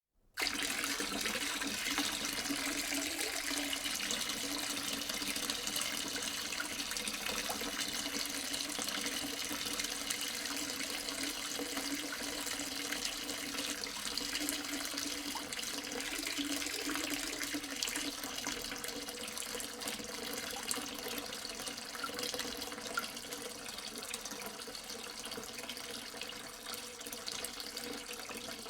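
A steady jet of running water splashing continuously, starting suddenly just after the beginning.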